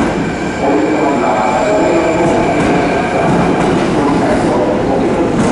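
Kintetsu 5820 series electric train moving in the station: steady running noise with shifting wheel and motor tones and some rail clatter.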